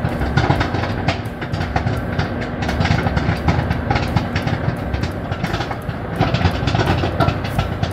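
Microwave popcorn popping hard in a running microwave oven: a dense stream of rapid pops over the oven's steady hum.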